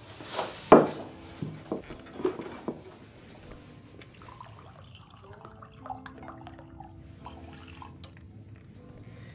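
Dinner-table sounds from a short film played back in a room: a few sharp clinks and knocks of a plate and cutlery set on the table, then wine trickling into a glass. Soft held music notes come in over the second half.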